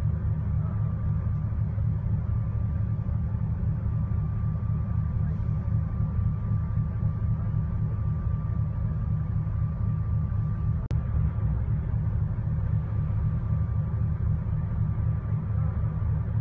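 Bus engine idling while the bus stands still, a steady low rumble heard from inside the cabin, with a thin steady high tone over it. A single sharp click about eleven seconds in.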